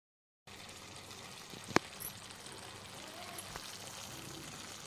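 Thick egg chilli gravy simmering in a nonstick pan over the gas, a steady low hiss, with one sharp click about two seconds in.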